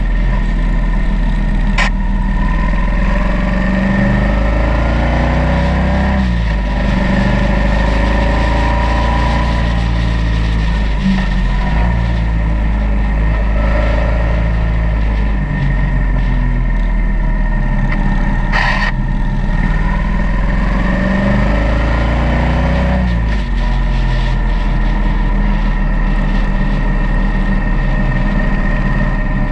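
Motorcycle engine running while riding through tight bends, its pitch rising and falling again and again as the rider accelerates out of each curve and rolls off into the next, over a steady low rumble and wind noise. Two brief sharp clicks, about two seconds in and near twenty seconds in.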